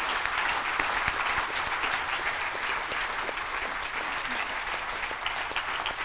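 Audience applauding: dense, steady clapping from a seated hall crowd.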